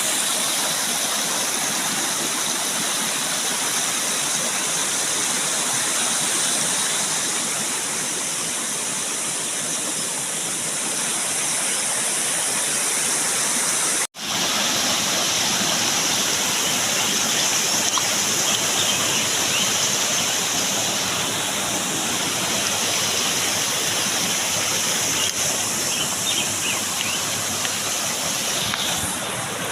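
Steady rush of falling and flowing water from a waterfall and stream, broken off for an instant about halfway through.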